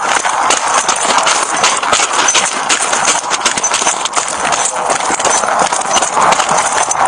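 Footsteps crunching steadily on loose gravel at a quick walk, heard close up with the rustle of a body-worn camera and gear.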